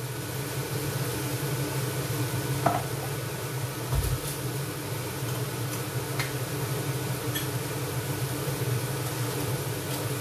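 Diced chicken frying in a pan, a steady sizzle over a low, even hum, with a few light clicks and a dull knock about four seconds in.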